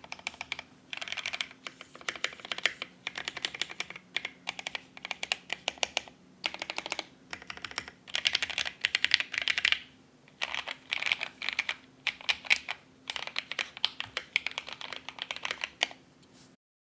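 Typing on a Barleycorn Mini-1800 mechanical keyboard with lubed, filmed JWK Mauve linear switches and PBT keycaps. Quick keystrokes come in bursts of a second or two with short pauses between them, and stop abruptly near the end.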